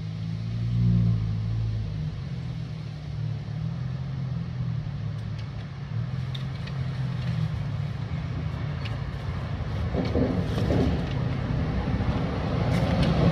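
An engine running steadily with a low drone, with a few faint clicks over it.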